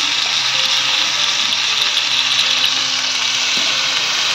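Skewered chicken and vegetable kebabs frying in oil on a hot flat griddle: a steady, loud sizzle.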